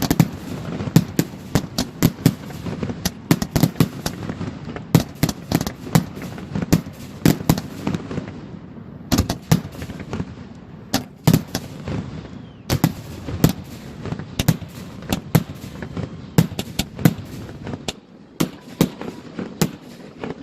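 Fireworks finale: a rapid barrage of aerial shell bursts, several sharp bangs a second over a continuous low rumble, thinning out in the last couple of seconds.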